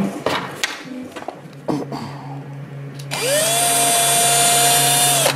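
A few small clicks, then about three seconds in an electric drill-driver spins up with a quickly rising whine and runs steadily for about two seconds, driving an M3 screw into the 3D-printed plastic effector, then stops abruptly.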